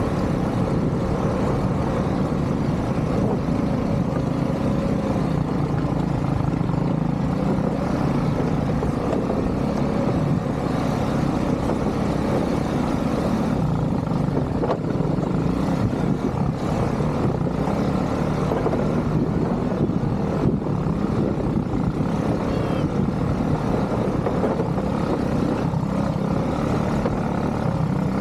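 ATV engine running steadily, a dense low rumble without a break.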